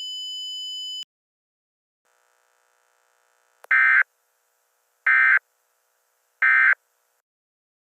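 A steady high electronic tone cuts off about a second in. Then the Emergency Alert System End of Message signal plays: three identical short, buzzy SAME data bursts, each about a third of a second long and about 1.4 s apart, marking the end of the alert.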